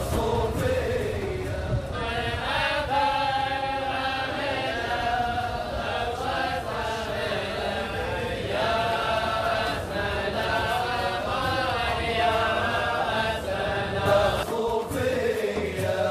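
A group of men's voices chanting an Arabic devotional song together, in long held melodic lines, with a brief pause near the end.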